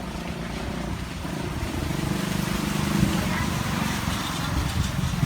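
A motor vehicle engine running, low and steady in pitch, growing gradually louder.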